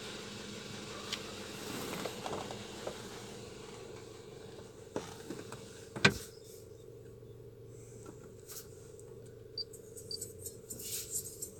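Steady low hum inside a car, with scattered light clicks and one sharp knock about six seconds in.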